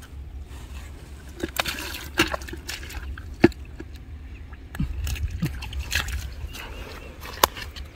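Hands splashing and sloshing in a shallow muddy puddle while groping for fish, in irregular splashes with two sharper ones, about three and a half seconds in and near the end.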